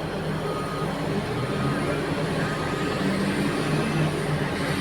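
Heavy mining diesel engines running steadily with a low drone. A reversing alarm beeps about once a second through the first few seconds, then fades out.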